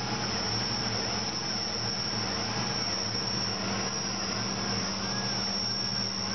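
Tormach PCNC 1100 CNC mill running a cut: a steady high spindle whine over the machine's low hum, with a fainter tone that rises and falls again and again as the axes move.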